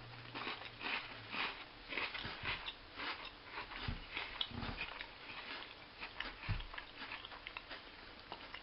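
Chewing a chocolate-coated Tim Tam biscuit close to the microphone: quiet, irregular crunching and mouth sounds, with a few soft low knocks around the middle.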